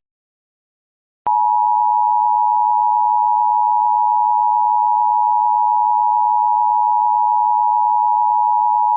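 Emergency Alert System attention tone: a loud, steady electronic tone that starts abruptly about a second in and holds without change. It signals that a warning message, here a Special Marine Warning, is about to be read.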